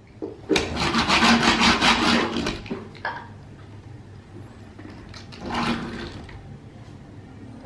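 A small die-cast Hot Wheels toy car rolled across a wooden tabletop, its wheels rumbling on the wood. There is a longer run of rolling, a click, then a second, shorter run.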